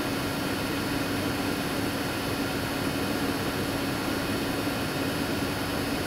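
Vacuum cleaner running steadily: a constant rush of air with a steady hum under it.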